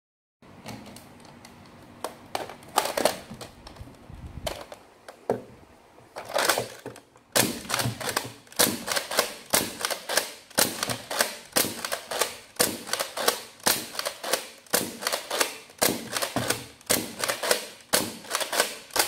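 Scattered plastic clicks as foam darts and a clip magazine are handled and fitted. Then, from about seven seconds in, a spring-powered Nerf N-Strike Recon CS-6 is pumped and fired in quick succession, a run of sharp plastic clacks about two a second.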